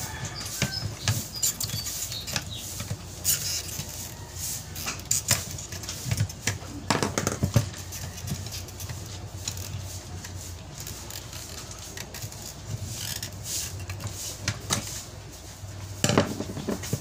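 Irregular clicks, knocks and clinks of small parts and tools being handled while a car's fuel pump assembly is taken apart and inspected, over a faint low steady hum.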